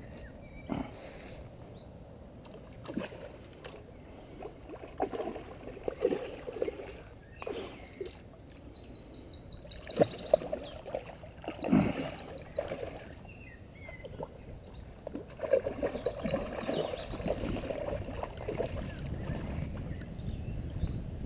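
Hooked ghost carp thrashing at the surface close to the bank as it is played towards a landing net: irregular splashes and slaps of water, a few louder than the rest.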